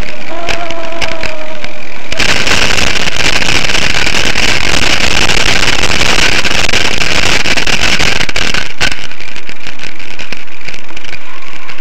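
Loud rushing wind and rolling noise on a bicycle-mounted camera's microphone while riding. It sets in suddenly about two seconds in and cuts off about nine seconds in. Before it there is a thin, wavering squeal.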